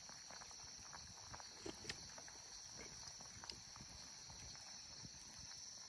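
Faint, steady high-pitched insect drone, with a few soft ticks scattered through it.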